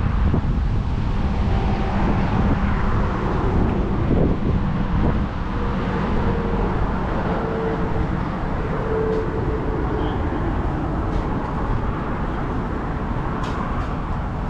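A car running and moving forward: a steady low engine and road rumble.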